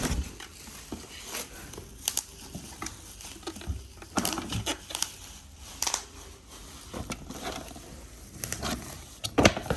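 Scattered rustling and crinkling of packaging, with light knocks and clicks as it is handled.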